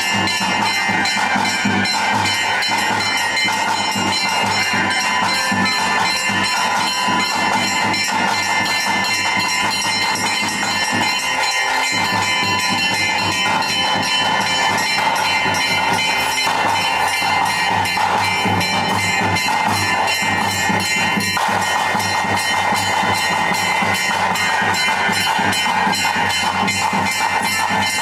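Bhuta kola ritual music: bells ringing over a fast, continuous beat, loud and unbroken.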